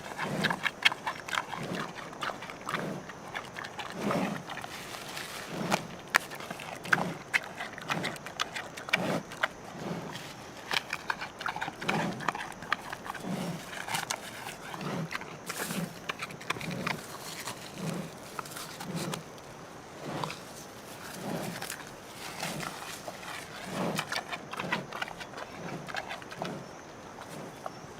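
Panda eating: steady crunching and chewing, with sharp cracks and a low chomp about once a second.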